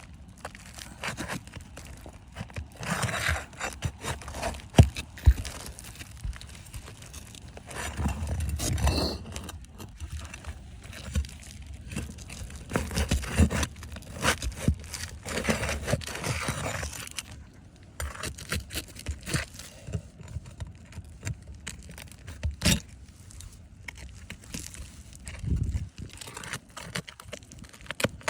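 Irregular scraping, rattling and clicking of small hard parts being handled and worked on, with a few sharper knocks.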